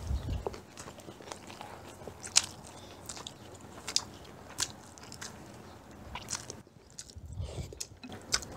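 Close-up eating sounds: chewing and biting of food, with scattered sharp clicks as a metal spoon and chopsticks touch ceramic rice bowls.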